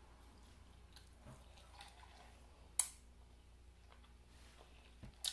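Quiet room with two sharp clicks, one nearly three seconds in and a double click near the end, as a glass mason jar drink is picked up and handled.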